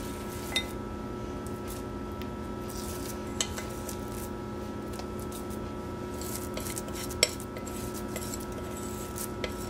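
A spoon clinking against a glass mixing bowl as sticky dumpling dough is scooped and dropped off it, three sharp clinks a few seconds apart and a couple of lighter ones near the end. A steady electrical hum runs underneath.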